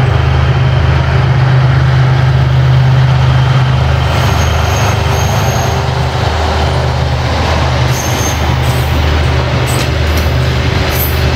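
Diesel-hydraulic LDH locomotive 82-0562-7 running with a steady low drone as it hauls a passenger train past, its coaches rolling by. Thin high wheel squeals come in about four seconds in and again near the end.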